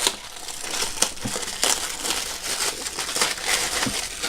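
Packaging being torn and crumpled open by hand, a run of crinkling, crunching crackles.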